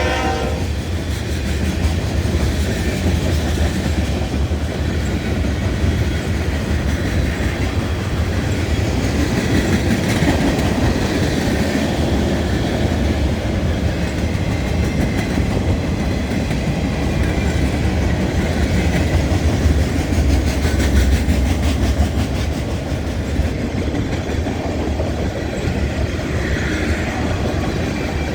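Freight train cars rolling past on the rails: a steady rumble of steel wheels on track.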